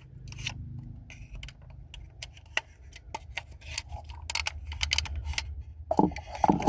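Flathead screwdriver prying and scraping at a plastic power lock switch in a truck door panel: irregular small clicks and scrapes of metal on plastic, a few louder clicks near the end.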